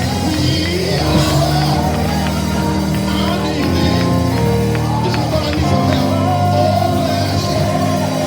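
Gospel church music: sustained keyboard chords and drum hits, with a voice singing in long bending lines over them.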